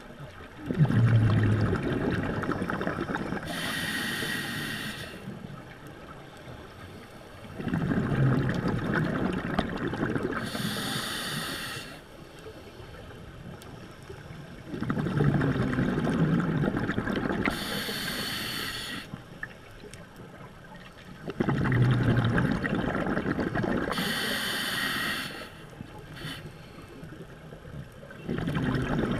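Scuba diver breathing through an open-circuit regulator underwater: a hissing inhale, then a rumbling burst of exhaled bubbles, repeating in slow, even breaths about every seven seconds, four times.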